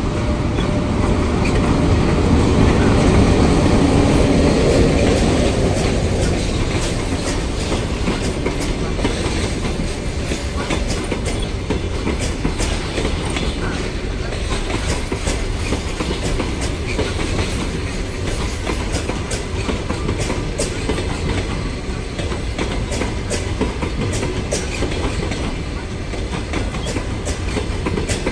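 EP1M electric locomotive passing close by as an arriving passenger train pulls in, loudest in the first six seconds. Then the passenger coaches roll past with steady wheel and rail noise and a clickety-clack of wheels over rail joints.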